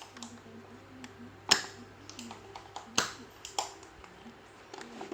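Sharp clicks and light ticks of hand tools working on a TV power board while a shorted MOSFET is being desoldered, the loudest clicks about a second and a half and three seconds in, over a faint steady hum.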